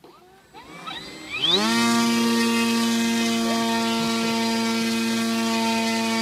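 DJI E600 brushless electric motor and propeller of an RVJET model plane spinning up: a few short throttle blips, then a whine that rises sharply for about half a second and holds at a steady high pitch.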